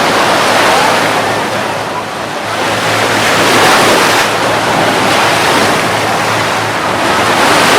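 Ocean surf washing onto the beach, a steady rush that swells and eases every few seconds as waves break.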